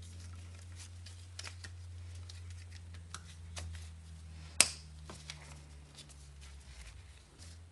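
Gloved hands handling plastic wiring connectors and hoses in a car's engine bay make scattered light clicks and rustles, with one sharp click about four and a half seconds in. A steady low hum runs underneath.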